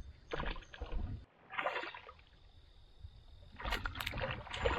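Water splashing and knocking around a canoe in three short bursts, as a hooked fish is brought in.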